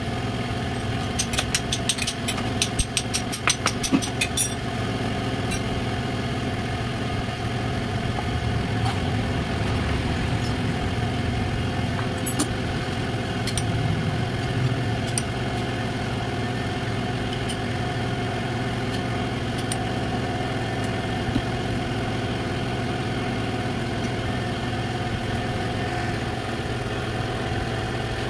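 A motor engine idling steadily in the background. A quick run of sharp metallic clicks comes about a second in and stops after about three seconds, with a few single clicks later.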